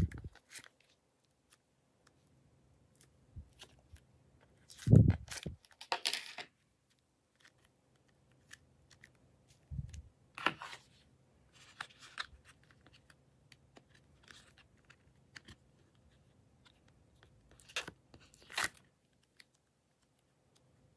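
Clay slime being pulled out of a plastic palette and handled: scattered sticky crackles and small tearing sounds, with a few soft thuds.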